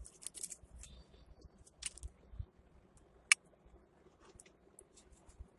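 Faint rustles and light clicks as the sheet of drawing paper is handled and moved, with one sharp click about three seconds in.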